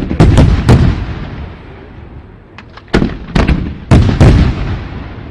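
Fireworks shells bursting in quick succession: a cluster of sharp booms in the first second, then a second cluster about three seconds in, each followed by a low rumbling echo.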